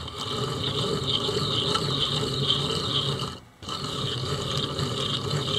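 Electric boat motor's shaft turned by hand with locking pliers, grinding and scraping in its end housing, with a short break about three and a half seconds in. The grinding comes from gunk stuck under the shaft bearing, not necessarily from the bearing itself.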